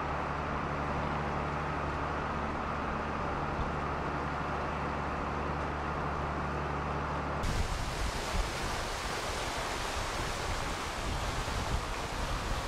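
A ferry's engine running with a steady low hum, heard from the deck as the boat pulls away. About seven and a half seconds in it switches abruptly to the rushing, churning water of the ferry's wake, mixed with wind.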